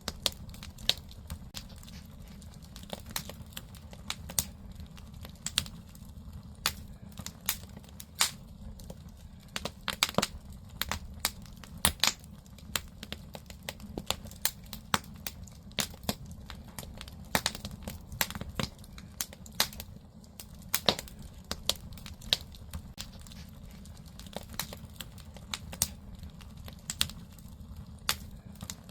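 Firewood burning in a Korean agungi (traditional wood-fired firebox), crackling with irregular sharp pops and snaps over a steady low rumble.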